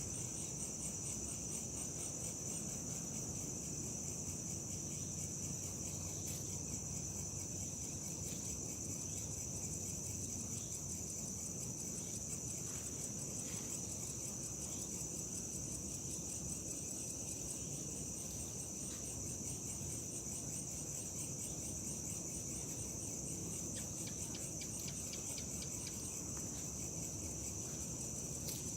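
Crickets chirping in a steady high-pitched chorus that does not let up, over a low steady rumble.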